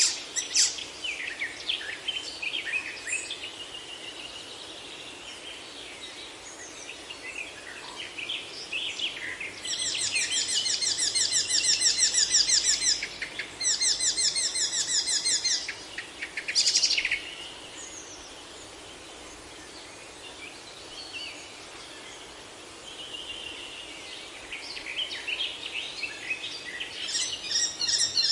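Songbirds singing and chirping, with a fast, buzzy trill sung twice about ten and fourteen seconds in, and busier overlapping chirps near the end.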